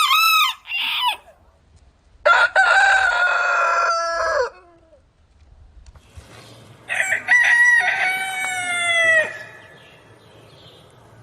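Rooster crowing: the tail of one crow at the very start, then two full crows, each about two and a half seconds long, about two seconds apart.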